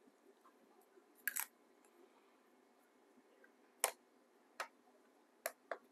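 A few faint, sharp clicks and taps from a fountain pen being lifted off a small digital pocket scale and the scale being handled: a quick double click about a second in, then single clicks spaced through the rest, two close together near the end.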